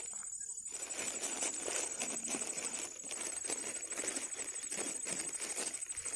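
Small clicks and rustling close by, from hands handling fishing tackle while the hook is rebaited with a cricket, over a steady high-pitched insect drone.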